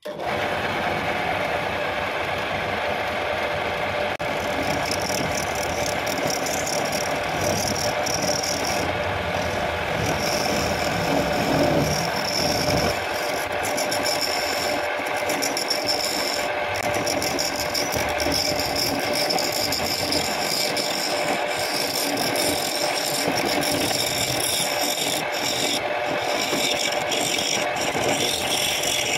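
Belt-driven wood lathe running while a turning chisel scrapes and cuts into a spinning guava-root blank: a steady rasping scrape over the machine's constant hum.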